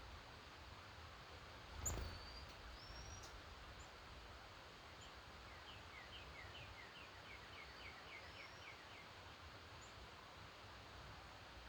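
Faint early-morning birdsong: a few short high whistles, then a run of about a dozen quick falling notes over roughly four seconds. A single low thump about 2 seconds in.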